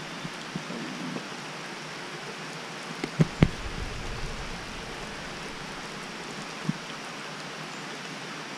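Steady hiss of rain falling during a rainstorm, with a few short knocks about three seconds in and another near the end.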